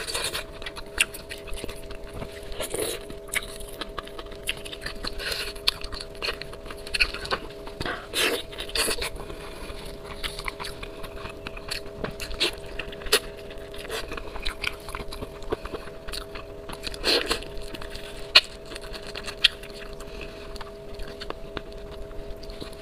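Close-up eating sounds of saucy braised bullfrog being pulled apart and chewed: wet smacking, sucking and tearing clicks at irregular intervals, over a faint steady hum.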